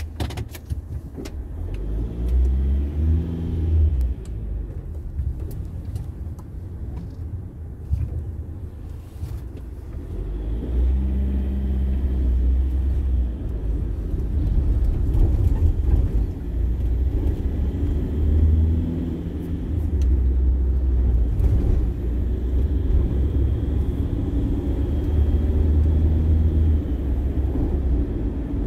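Car engine and road rumble heard from inside the cabin as the car pulls away and picks up speed, the engine note rising several times through the gears.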